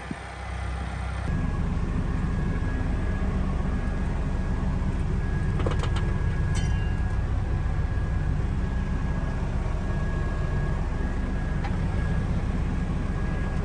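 Case 590N backhoe loader's 110 hp FPT diesel engine running steadily, growing louder about a second in and then holding, with a thin steady whine alongside and a few brief clicks near the middle.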